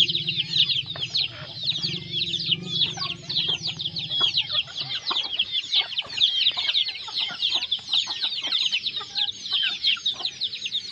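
A chicken flock in a yard: a dense, continuous chorus of short high chirps with scattered lower clucks. A low steady hum underneath stops about five seconds in.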